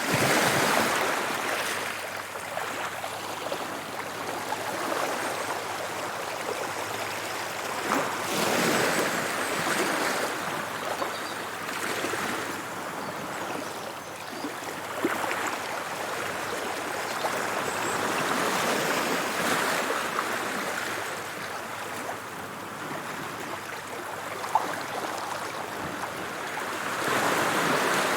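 Sea surf: waves breaking and washing ashore in a continuous hiss that swells every few seconds as each wave comes in.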